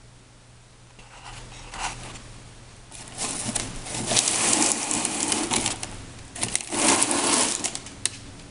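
Crinkling, rustling noise in three bursts: a short one about a second in, then two longer, louder ones.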